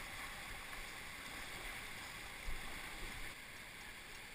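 Steady rush of a mountain creek, fairly faint, with a couple of dull bumps about halfway through.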